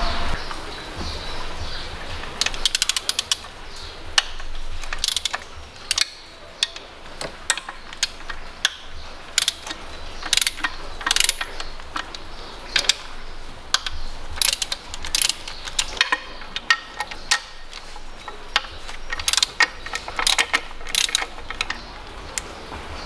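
Socket ratchet with a 10 mm head clicking in short runs as the supercharger's mounting bolts are unscrewed, with scattered single clicks and taps of the tool on metal.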